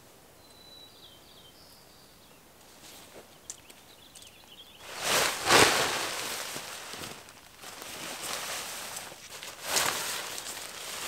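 Tent rainfly fabric rustling and swishing as it is thrown over the tent poles and pulled into place. It is loudest about five seconds in and again near the end, after a quiet start with a few faint high chirps.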